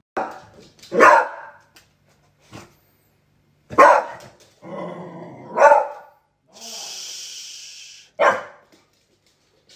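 Beagle puppy barking at an upright stick vacuum cleaner: about four loud single barks a few seconds apart, with softer ones between. A short steady hiss comes in about two-thirds of the way through.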